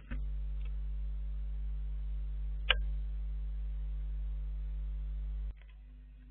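Steady low electrical hum from the trail camera's own recording circuit, with evenly spaced overtones. It stops abruptly about five and a half seconds in, and a single sharp click comes a little under halfway through.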